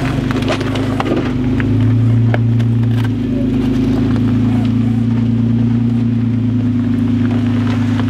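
Jeep Wrangler engine running steadily at low revs while it crawls over rocks, swelling briefly about two seconds in, with scattered small clicks and crunches of rock under the tyres.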